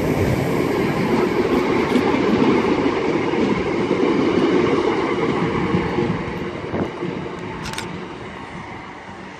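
Class 319 electric multiple unit pulling away from the station, its wheel and traction noise fading steadily as it moves off.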